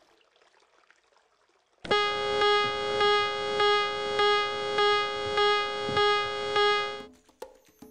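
After a couple of seconds of near silence, a single held synthesizer tone at one steady pitch starts abruptly, pulsing in loudness a little under twice a second, and cuts off suddenly about seven seconds in.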